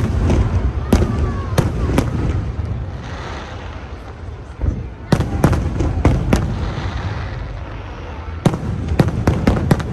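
Aerial fireworks bursting with sharp bangs: a few spaced bangs at first, a string of them in the middle, and a rapid volley near the end, over a low rumble.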